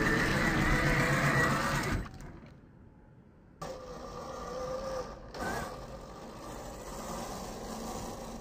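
Electric motor and drivetrain of a 1/10-scale RC rock crawler whining steadily at close range, fading out about two seconds in. After a brief quiet spell it comes back fainter as the truck crawls along a dirt trail, with a short rise in pitch about halfway through.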